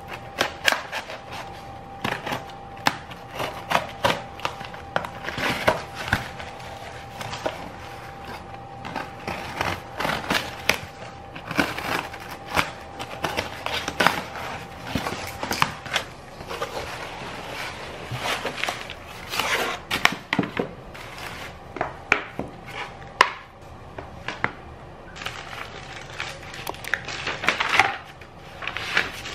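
A cardboard box being cut open: a blade slicing through packing tape and cardboard, the box crackling and creaking in a run of sharp scratches and clicks.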